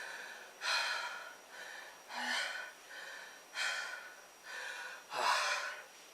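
A man breathing hard through the mouth, out of breath from push-ups: a loud breath about every one and a half seconds, with softer ones between.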